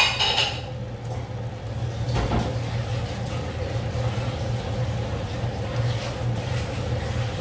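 Steady low hum and rumble of pots cooking on the stove: a large pot of pasta water and a pan of tomato meat sauce simmering. A short hiss comes right at the start.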